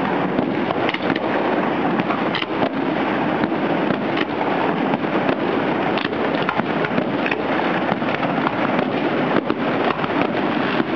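Fireworks display in a dense barrage: a continuous crackle and rumble of rockets going up and shells bursting, with many sharp bangs overlapping and no let-up.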